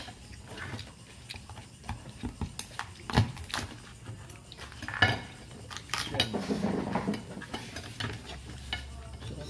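Kitchen knife cutting through a cooked mud crab on a plate: scattered clinks and knocks of the blade against the shell and the plate, the sharpest about three and five seconds in.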